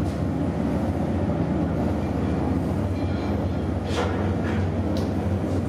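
Steady low mechanical rumble of the tug's machinery running under load to drive the fire monitor jet, heard inside the wheelhouse. A couple of short clicks come about four and five seconds in.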